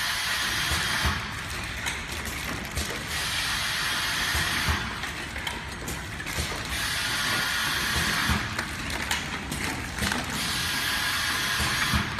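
Carton packaging machine running: a continuous mechanical clatter from its pocketed infeed conveyor and drive, with repeated short knocks over a steady hiss that swells and eases every couple of seconds.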